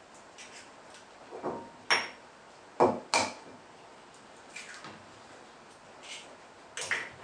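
Eggs being cracked against a bowl: a handful of sharp taps and clicks of eggshell on the bowl, the loudest about two and three seconds in.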